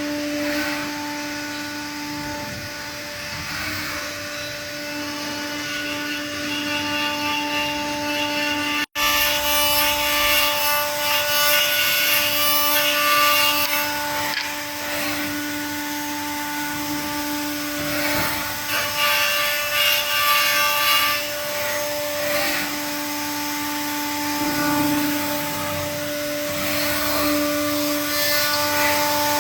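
Woodworking CNC machining center running, its router spindle giving a steady whine while the cutter works wood in stretches of rasping cutting noise. The sound drops out for an instant about nine seconds in.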